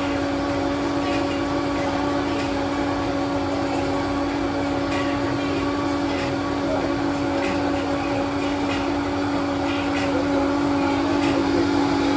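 Steady mechanical hum with a low, even drone. Scattered light clinks and knocks come over it, from bottles and glassware being handled at a bar counter.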